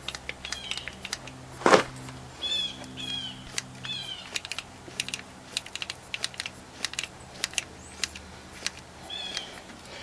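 Pistol-grip grease gun clicking irregularly as it is pumped, forcing grease through a needle-nose adapter into a grease fitting. There is a louder clack about two seconds in and a few short high chirps.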